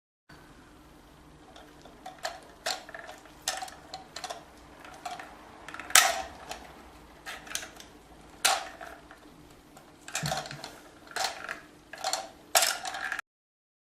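Irregular sharp clicks and knocks of hard toilet cistern valve parts being handled and fitted, the loudest about six seconds in, over a faint steady hum.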